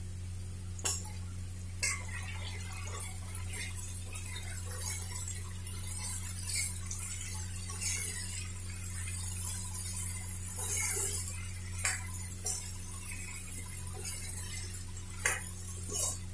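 Steel spoon stirring diced potatoes in a metal kadhai, scraping and clinking against the pan, with a few sharper knocks. A steady low hum runs underneath.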